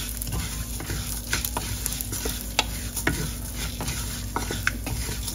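Wooden spatula stirring split moong dal and garlic frying in butter in a stainless steel pan: a gentle steady sizzle with scattered scrapes and ticks of the spatula and grains against the pan.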